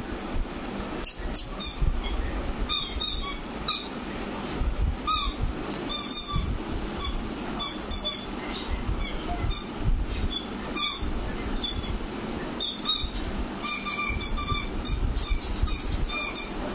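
A crocodile squeaky toy squeezed over and over as a golden retriever puppy chews it, giving short, high squeaks in irregular clusters, several a second at times.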